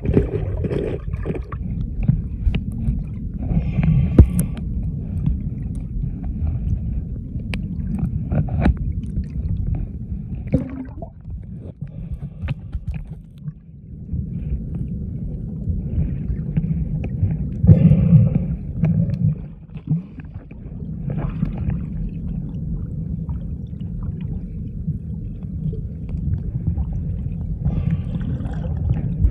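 Muffled underwater sound picked up by a submerged camera: a steady low rumble of moving water with a few brief, louder gurgling bursts.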